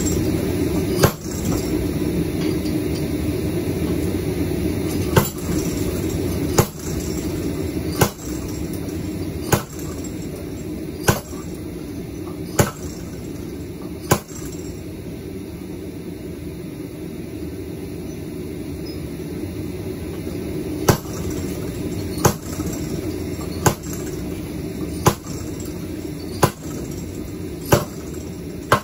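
Homemade Beam-style power hammer's 53 lb ram, raised and dropped under gravity, striking a glowing 1.25-inch cube of 4140 steel on the lower die. Sharp metal-on-metal blows come about every one and a half seconds, with a pause of several seconds midway, over a steady low background noise.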